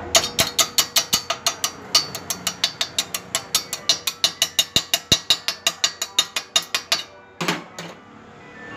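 Chipping hammer tapping slag off a fresh stick weld on thin steel tube: quick, sharp metallic taps at about six a second that stop about seven seconds in, then two more taps.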